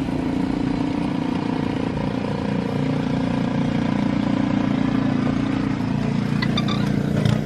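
Small gasoline snowblower engine running steadily at a constant drone.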